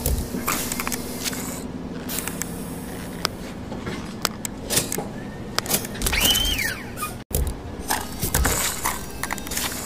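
Mechanical sound effects of an animated assembly machine: a steady low machine hum under repeated clicks and clunks as the arms set pieces onto the block. A short squeal rises and then falls about six seconds in, and the sound cuts out for an instant just after.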